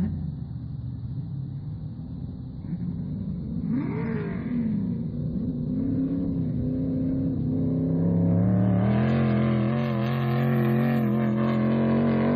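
Sand rail engines revving over the dunes. About four seconds in there is a quick rev that rises and falls in pitch. From about eight seconds in the engine runs louder and steadier at high revs as a rail accelerates hard.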